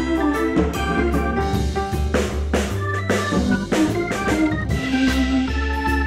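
Background music with sustained keyboard chords, a steady bass line and regular drum hits.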